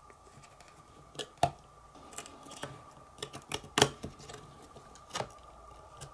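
Scattered small clicks and taps as fingers handle a mini PCI laptop Wi-Fi card and press it into its slot on the radio's circuit board, about eight in all, the sharpest a little under four seconds in.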